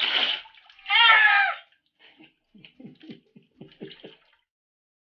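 Water splashing in a bath, then a cat being bathed gives one loud, high, wailing yowl about a second in. A string of about seven short, low sounds follows.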